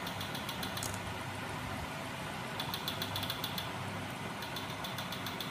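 Homemade magnet-engine rig driven by a small 12 V electric motor, running with a steady low mechanical hum. Three short bursts of rapid light clicking sit over it, at the start, in the middle and near the end.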